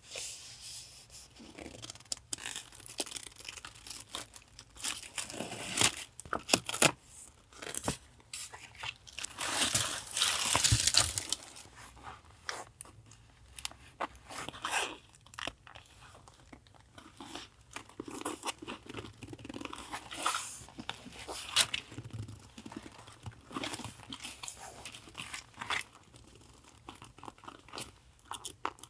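Paper and packaging being handled at a desk: irregular rustling, crinkling and crackling in short bursts, with a longer, louder rustle about ten seconds in.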